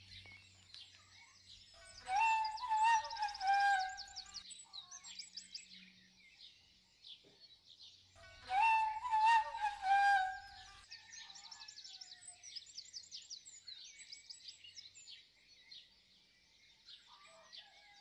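Birds chirping and singing, with two short, wavering flute-like phrases standing out above them, about two and eight seconds in.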